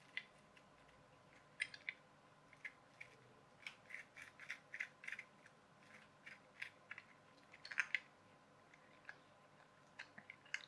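Small plastic gears and the clear plastic gearbox frame of a clockwork toy car clicking and scraping faintly as they are handled and fitted together by hand, with a busy run of clicks around the middle.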